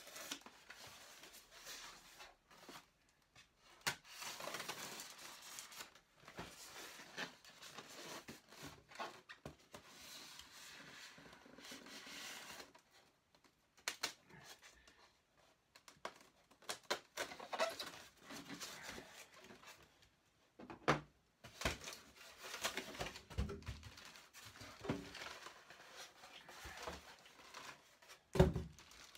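Blade cutting the tape seal on a styrofoam box, with styrofoam scraping, rubbing and scattered knocks as the box is handled and opened. Near the end, a plastic bag rustles as the toy inside is lifted out.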